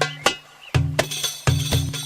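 Darbuka (derbak) playing a quick rhythm: deep, booming low strokes alternating with sharp, high clicking strokes.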